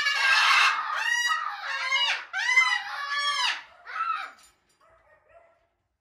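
Moluccan cockatoo screaming: one long, harsh scream, then a run of about four shorter screeches that die away about four and a half seconds in.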